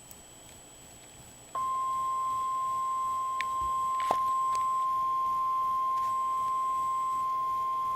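NOAA Weather Radio 1050 Hz warning alarm tone: one steady, unbroken tone that switches on abruptly about a second and a half in, after faint radio hiss. It is the alert signal that a weather warning, here a severe thunderstorm warning, is about to be read.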